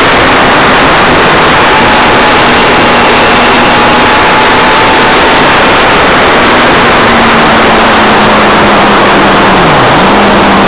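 Motorcycle at speed on track heard from an onboard camera, heavy wind noise over the microphone with a steady engine note beneath. The engine note drifts slowly lower and dips briefly near the end.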